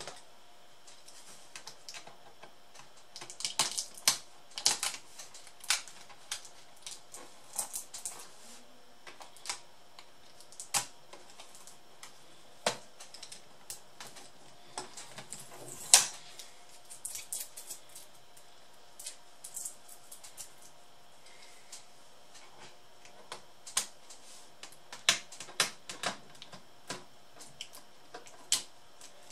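Small screwdriver clicking and tapping against the plastic and metal of an Asus K53S laptop's keyboard deck as it is taken apart: scattered sharp clicks at an uneven pace, the loudest about halfway through.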